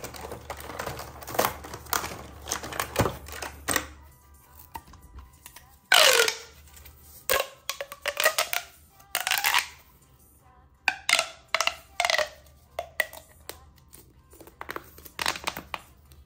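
Plastic packaging crinkling and tearing, with clicks of small plastic toys being handled. A few squeaky gliding sounds come about 6, 9 and 12 seconds in.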